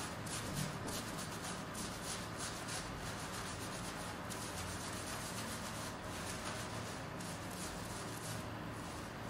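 Gloved fingers scrubbing a shampoo-lathered scalp: repeated rubbing strokes through foamy wet hair.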